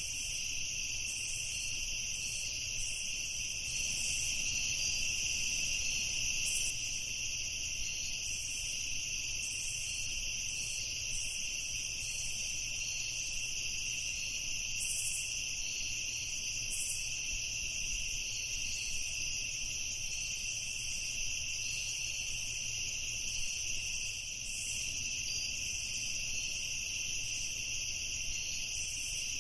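Night chorus of crickets chirping steadily, their high trilling constant, with a few brief higher chirps scattered through it.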